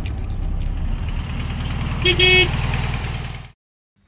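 Classic VW Beetle's air-cooled flat-four engine idling with a steady, pulsing rumble, and a short horn toot about two seconds in. The sound cuts off suddenly near the end.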